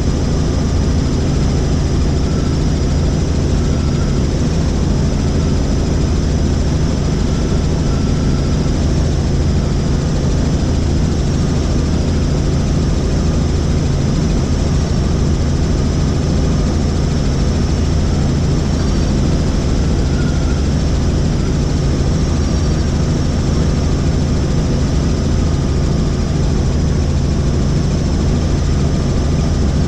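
Helicopter in flight: steady engine and rotor noise, a constant low drone that does not change throughout.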